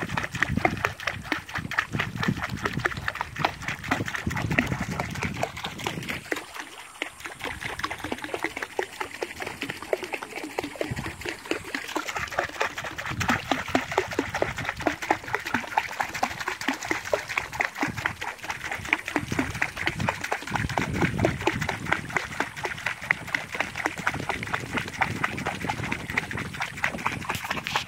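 A hooked barbel (sharptooth catfish) thrashing at the water's surface on the line: continuous rapid splashing and slapping, easing a little about a quarter of the way in.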